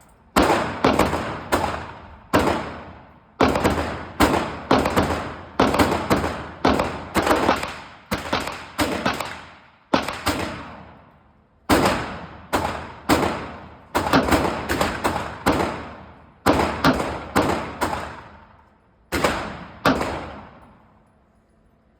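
Gun fired in a long series of shots, some single and some in quick strings of two or three, with brief pauses. Each shot is followed by a short ringing echo.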